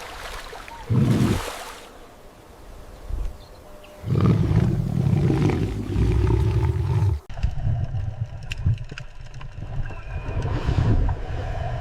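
A large animal's deep roaring growl, loud and low, lasting about three seconds and cutting off abruptly, with a shorter loud call about a second in.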